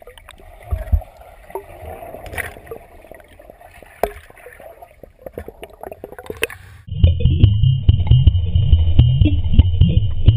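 Muffled underwater sound from a camera held below the surface of a pool, with scattered clicks and faint gurgling. About seven seconds in, louder electronic background music with a steady beat cuts in and takes over.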